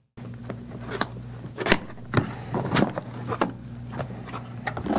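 Cardboard product box being handled and its top flap pulled open: irregular scrapes, rubs and short taps of cardboard, over a steady low hum.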